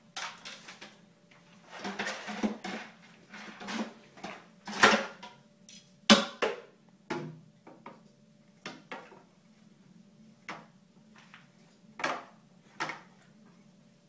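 A stick knocking against a clear plastic pet feeder and clattering through spilled dry dog kibble: irregular clicks and clatters, a dense run about two seconds in, the two loudest knocks around five and six seconds in, then lighter single taps.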